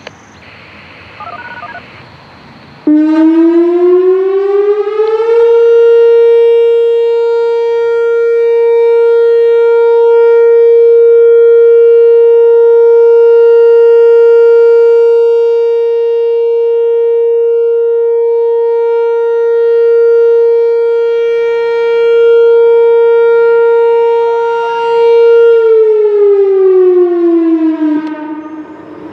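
Whelen WPS 4004 electronic outdoor warning siren sounding its 465 Hz steady alert tone. It starts suddenly about three seconds in with a quick rise in pitch, holds one loud steady note rich in overtones for about twenty seconds, then glides down in pitch and fades near the end.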